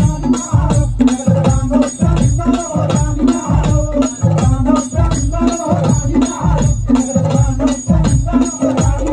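Live folk music: a troupe of drummers playing a fast, driving beat on folk drums and a drum kit, with a bright shaker-like rattle on top and a repeating pitched figure.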